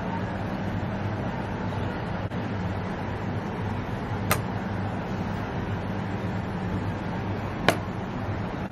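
Steady low hum with an even background rush, broken by two sharp clicks, about four and about eight seconds in.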